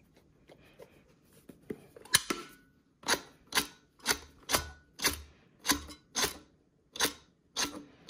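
Flint wheel of an oversized tabletop replica Zippo lighter flicked again and again, a sharp scrape about twice a second from about two seconds in. The wick does not catch, which is put down to it probably needing even more lighter fluid.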